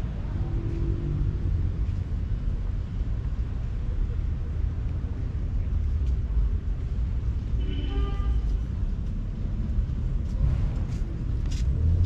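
Steady low rumble, with a brief pitched call about eight seconds in and a few sharp clicks near the end.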